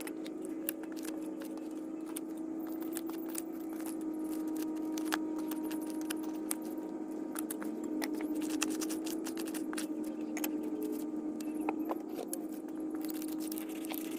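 Hand digging in root-filled soil: irregular sharp scrapes and clinks of a metal tool, over a steady low hum.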